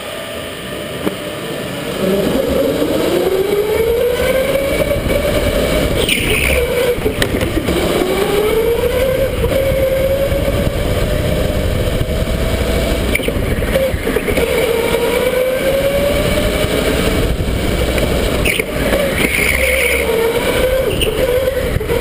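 Electric go-kart motor whining as the kart pulls away about two seconds in. The whine rises with speed, drops sharply a few times as the kart slows for corners, then climbs again, over a steady low rush of noise.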